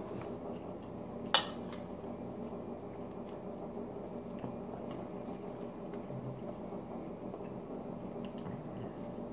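A metal fork clinks sharply against a plate once, about a second in, with a short ring; a few faint cutlery clicks follow over a steady low hum.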